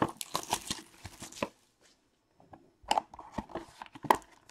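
A cardboard baseball card box being handled and opened by hand: scattered taps, scrapes and rustles of cardboard, with a short pause about halfway and a sharper click near the end.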